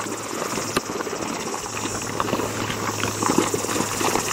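Geothermal boiling mud pool bubbling, with many small irregular plops and pops overlapping over a steady hiss.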